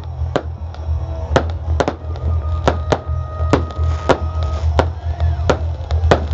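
Fireworks going off in an irregular string of sharp bangs, about two a second, with music playing underneath.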